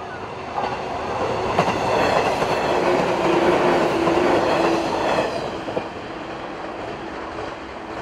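A JR 115 series electric train passes at speed over a level crossing, its wheels clacking over the rail joints. The pass builds from about half a second in, is loudest in the middle and dies away after about five seconds. The crossing's warning bell keeps ringing throughout.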